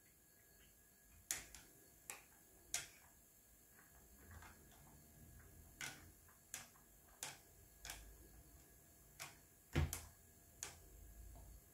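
A thin stick tapping against a glass jar while a thick mixture is stirred: faint, irregular clicks, about a dozen, the loudest nearly ten seconds in.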